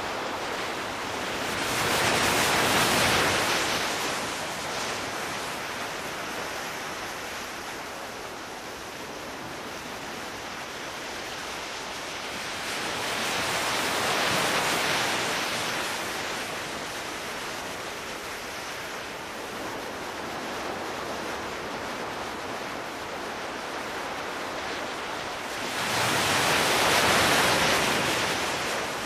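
Sea surf breaking and washing up a sandy beach over a steady hiss, swelling louder three times, about twelve seconds apart.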